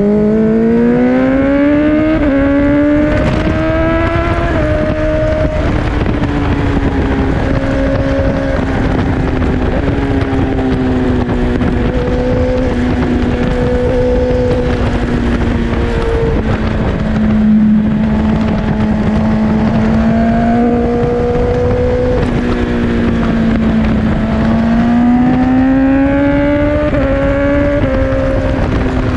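Four-cylinder superbike engine pulling hard at speed over wind rush. It rises in pitch through the first few seconds, then holds a fairly steady high note that swells and dips with the throttle, and climbs again near the end.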